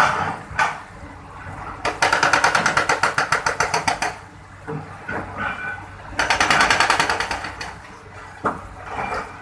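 Rapid mechanical rattling, about ten knocks a second, in two bursts: one of about two seconds and a shorter one a few seconds later, with scattered single knocks between.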